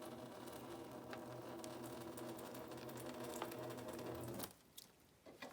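A steady mechanical hum with a few light clicks, cutting off suddenly about four and a half seconds in.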